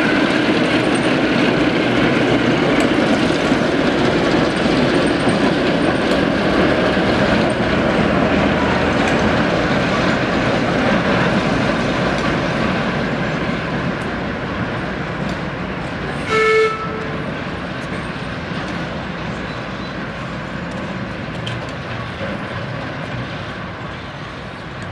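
Class 08 diesel shunter's English Electric six-cylinder engine running as the locomotive moves off, growing gradually fainter as it draws away. About two-thirds of the way through, the locomotive's horn sounds one short toot.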